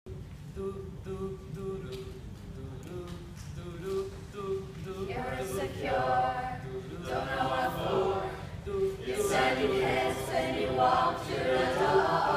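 Mixed-voice a cappella group singing without instruments. It opens with short repeated notes on one low part, then more voices join in harmony about five seconds in and the singing grows louder.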